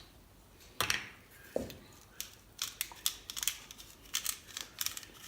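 Spices being sprinkled from a spice container, heard as a run of sharp clicks and rattles: two single knocks in the first two seconds, then quicker clusters of clicks.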